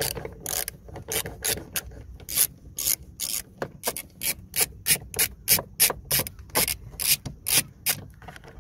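T20 Torx screw in a car door casing being undone with a small hand-turned bit driver: a run of short grating clicks, about three a second, stopping near the end.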